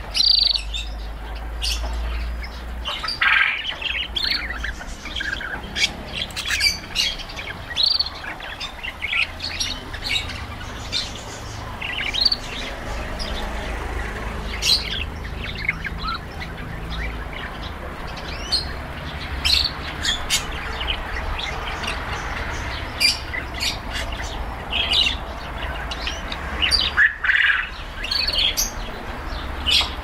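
Several caged domestic canaries chirping and calling, with many short high chirps scattered and overlapping throughout, over a steady low rumble.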